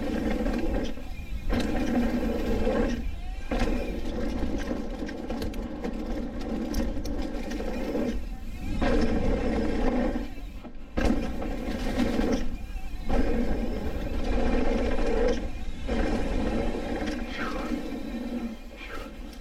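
Mountain bike riding a dirt trail: heavy wind rumble on the microphone with a steady buzzing tone that cuts out briefly every second or two, like a freehub buzzing while coasting and going quiet under pedalling.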